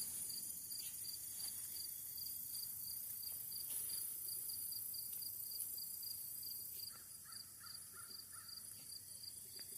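Crickets chirping in a steady, even pulse. About seven seconds in, a bird calls faintly in a quick run of about six notes.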